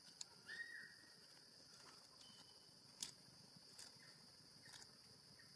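Faint steady high-pitched drone of forest insects, with a brief high squeak about half a second in and scattered light crackles of dry leaves, the sharpest about three seconds in.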